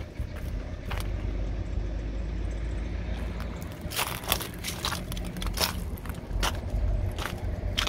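Footsteps crunching on gravel and dry dirt, several uneven steps in the second half, over a low steady rumble.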